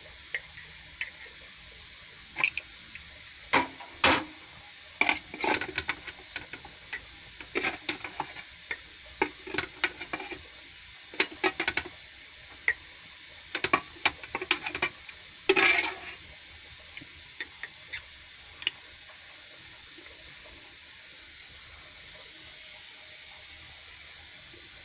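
Irregular clinks and knocks against a glass jar as cooked, syrupy dried figs are packed and pressed down into it. The clinks come in quick clusters for most of the time and thin out to a single one near the end, leaving only a faint steady hiss.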